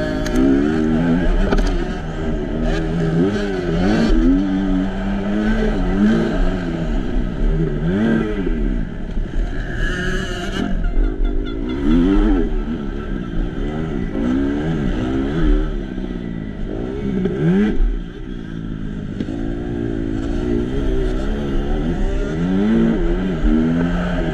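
Kawasaki KX250F four-stroke single-cylinder motocross engine under hard riding, its pitch climbing and dropping over and over as the rider opens and shuts the throttle through corners and ruts, with a steady low rumble of wind on the helmet microphone.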